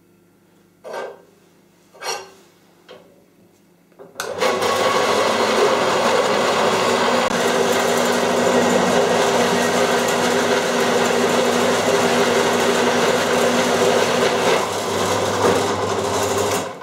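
Two knocks, then about four seconds in an Apex 4.5-inch metal-cutting band saw starts and runs steadily, its blade cutting through a metal plate, stopping just before the end.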